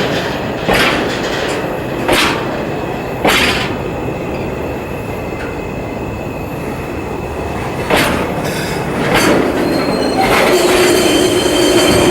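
A freight train of tank wagons rolls slowly, its wheels clacking over rail joints every second or so with a longer gap in the middle. Near the end steady wheel squeal sets in, as the train brakes to a stop.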